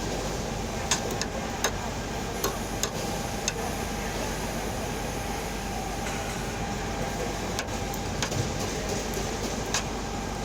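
Loud, steady background din of a busy market eating area, with a dozen or so short sharp clicks scattered through it.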